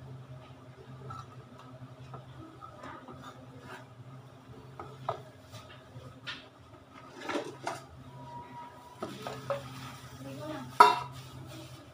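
Scattered clinks and knocks of kitchen work: a metal bowl and utensils being handled on a countertop, with one sharp metal clank near the end as the loudest sound, over a low steady hum.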